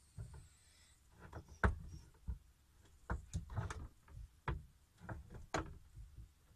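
Chef's knife cutting through a partly frozen block of smoked tofu, each cut ending in a sharp knock of the blade on a plastic cutting board: about nine irregular knocks, roughly one or two a second.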